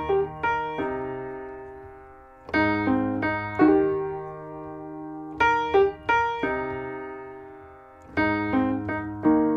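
Solo piano music: a short phrase of struck chords, each left to ring and fade, repeating about every three seconds.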